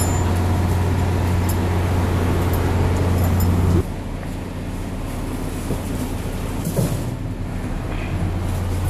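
A large vehicle's engine running steadily with a deep, even hum. It drops sharply in level about four seconds in and carries on more faintly.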